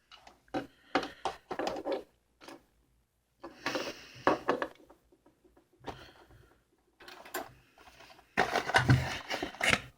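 Cardboard box and plastic packaging being handled and pulled apart, with irregular bursts of rustling, crinkling and clicks, the loudest stretch near the end.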